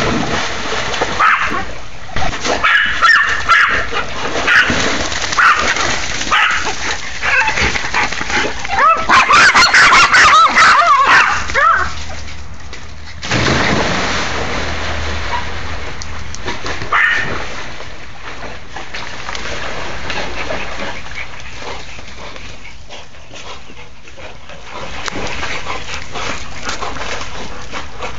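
Dogs barking and yipping excitedly in quick, repeated high-pitched yaps, with water splashing as Labradors swim in a pool. The barking is densest and loudest in the first half, then drops away about halfway through to a quieter wash of splashing with only occasional yips.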